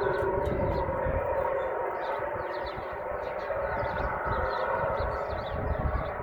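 An unexplained steady droning hum made of several sustained tones at once, which the recordist at first took for a low-flying jet. Short high chirps run over it throughout.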